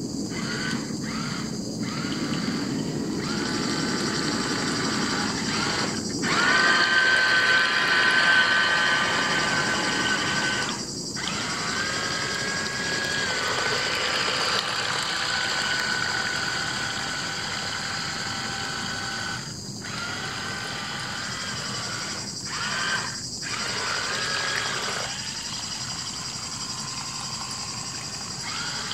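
Small electric motor of a 1/30-scale Nikko Aquasplit radio-controlled racing boat whining as the boat runs. The pitch shifts with the throttle, and the motor cuts out briefly several times. It is loudest about six to ten seconds in.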